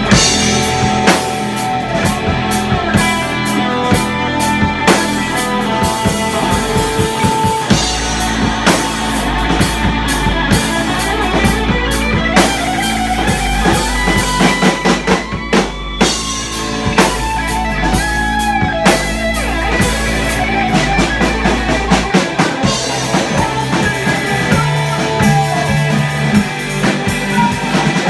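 Rock band playing live: drum kit, electric guitar and bass guitar. A deep low note is held from about a quarter of the way in until about three quarters through.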